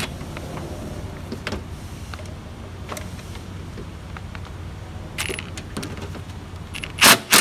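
Cordless ratchet motor running in short bursts, a brief one about five seconds in and the loudest just before the end, as it spins out a 17 mm bolt holding the motor mount to the frame. Light clicks of the socket and tool on the bolt, over a steady low hum.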